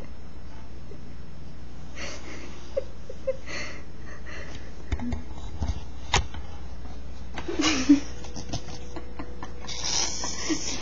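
Bull terrier snoring in its sleep: four noisy snorting breaths a couple of seconds apart, the loudest about eight seconds in with a short wheezy squeak, over a steady low hum. A single sharp click comes about six seconds in.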